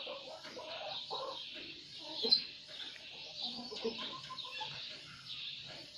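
Chickens clucking over a steady high chirping, with one sharp click a little over two seconds in.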